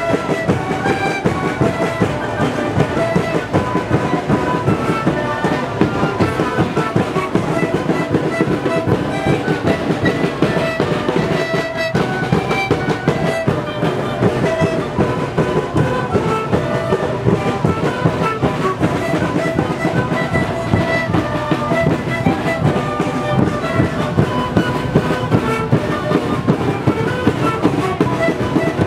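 An Andean street band playing: many wooden flutes and panpipes sound a held, repeating melody over large double-headed bass drums beaten in a steady, driving rhythm.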